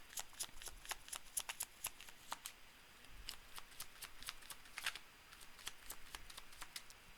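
Tarot cards being shuffled by hand: a quiet run of quick, irregular card flicks and clicks, thickest in the first couple of seconds and thinning out after.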